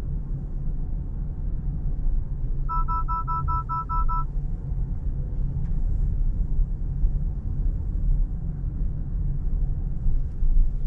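Honda SENSING lane departure warning alert: a rapid string of about seven short beeps lasting about a second and a half, sounding because the car is drifting out of its lane without the turn signal on. Under it runs the steady low rumble of the car's cabin at low speed.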